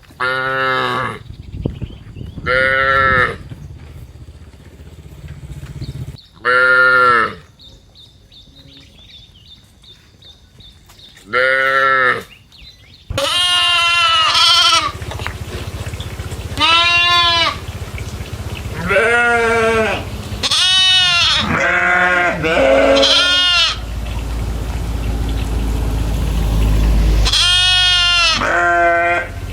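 Goats bleating: four separate wavering bleats spaced a few seconds apart, then from about halfway a busy run of overlapping bleats from several animals. A low rumble sits under the calls for a few seconds near the end.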